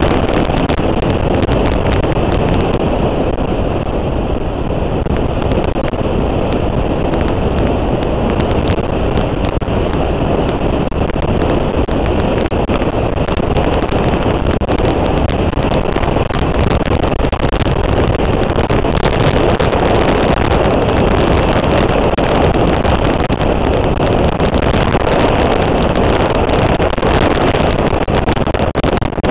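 A motorcycle running at riding speed, with wind rushing over the microphone in a steady, loud wash.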